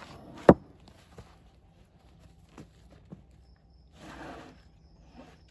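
Heavy white oak cookies (thick slices of log) being handled: one sharp wooden knock about half a second in, a few lighter knocks, then a short rustling scrape around four seconds in as a cookie is slid onto a stack.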